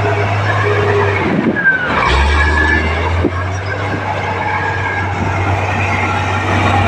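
Komatsu D58P crawler bulldozer's diesel engine running steadily, its low note dipping and shifting about two seconds in and settling back about a second later. A short falling squeal comes about one and a half seconds in.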